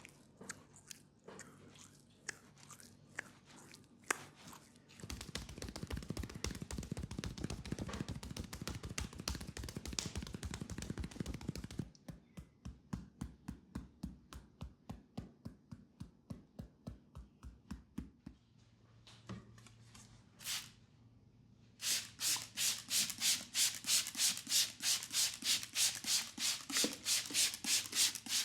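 Hands massaging a leg: a stretch of fast, dense rubbing, then rhythmic strokes of the palms on skin about two to three a second, which grow louder near the end.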